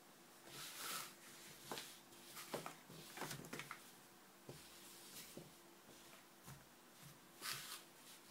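Thick puzzle pieces being pulled apart, slid and set down on a mat: faint scattered taps and light knocks, with a couple of brief brushing swishes from the hands, one just under a second in and another near the end.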